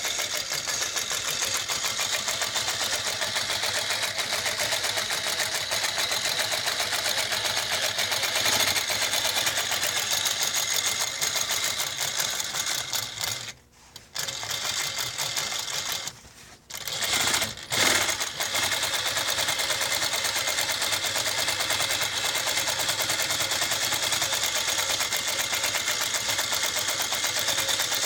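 Techsew 2150 industrial sewing machine running at a steady fast stitching rate, stopping briefly a few times about halfway through and then running on.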